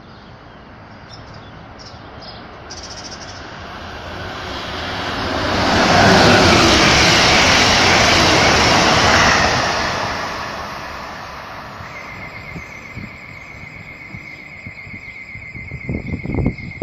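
Amtrak Vermonter passenger train led by a Siemens ACS-64 electric locomotive racing through the station at speed. The rush of wheels and air builds over a few seconds, stays loud for about four seconds as the cars pass, then fades. Afterwards a steady, wavering high tone lingers, with a few low thumps near the end.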